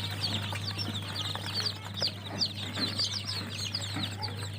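A large brood of young poultry chicks peeping nonstop, a dense chorus of short, high, downward-falling peeps over a steady low hum.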